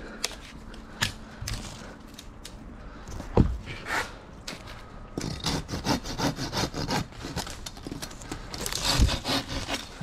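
Hand pruning saw cutting through a tree branch with quick, even strokes, about four or five a second, from about five seconds in. Before that there are a few separate knocks and cracks of wood being handled.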